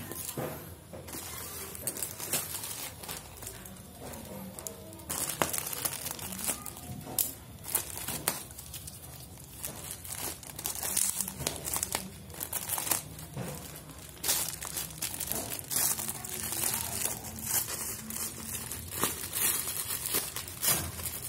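Packaging being crinkled and handled as a boxed phone holder is unpacked, in irregular crackling bursts.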